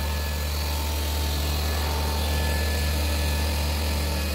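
Seat Ibiza 1.2 TSI's four-cylinder turbocharged petrol engine running steadily, held at about 2000 rpm.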